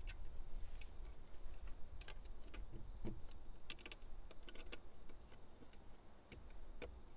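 Irregular light clicks and wooden knocks as a wooden window shutter is fitted and handled, coming in small clusters a few times, over a steady low rumble.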